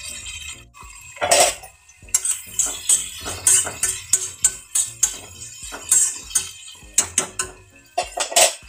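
Metal kitchen utensils clinking and scraping against each other in a quick, irregular run of sharp strikes. The loudest strikes come about a second in and near the end.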